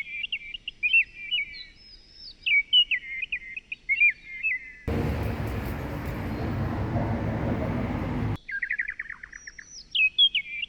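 A songbird singing short phrases, each a fast trill followed by quick whistled notes that glide up and down. From about five seconds in the song is cut off by a loud rushing noise that lasts about three and a half seconds, then the same song phrase comes back.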